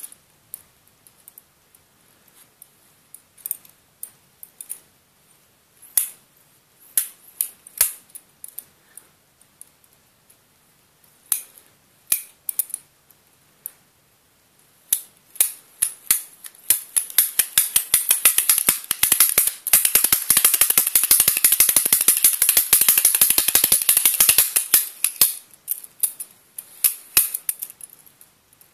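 Metal scissor-linkage tongs worked by hand, their pivoted flat metal arms clacking together. Scattered single clicks at first, then a fast, continuous metallic rattle from about halfway in, thinning back to scattered clicks near the end.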